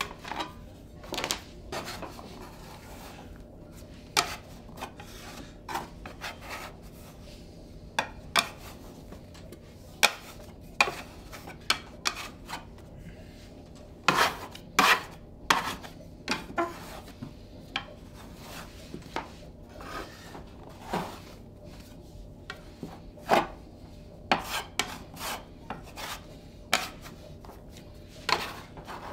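Dough scraper scraping and rasping against the floured wooden kneading trough as a large mass of dough is worked, in short, irregular strokes with a few sharper knocks.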